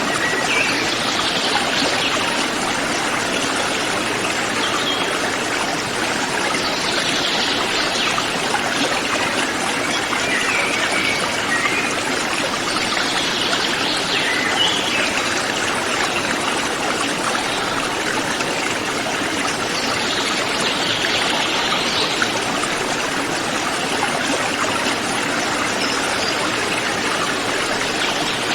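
Mountain river flowing over rocks, a steady rushing of water. Four times, roughly every six to seven seconds, a brief higher-pitched forest bird call rises above the water.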